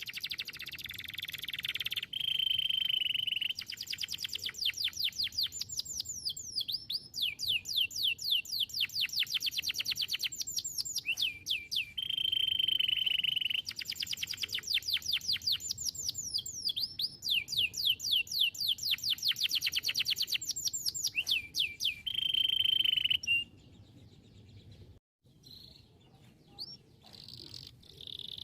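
Domestic canary singing: fast trills of sweeping notes alternating with long held whistled notes, the same phrase repeating about every ten seconds. The song stops about five seconds before the end, leaving only faint scattered chirps.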